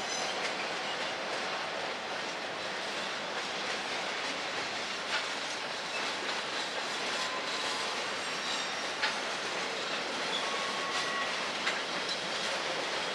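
Norfolk Southern freight train boxcars and gondolas rolling past on the rails: a steady rush of wheels on track, with scattered sharp clicks and a few brief high squeals.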